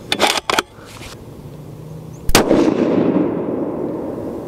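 A single 30-06 rifle shot from a Remington 700 ADL about two seconds in. Its report rolls away in a long, slowly fading echo. A few short handling clicks come in the first half second.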